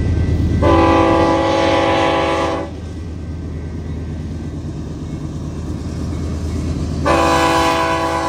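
Diesel freight locomotive horn sounding a multi-note chord over a steady low rumble: one long blast of about two seconds, then a second long blast starting near the end. It is a warning sounded for the grade crossing.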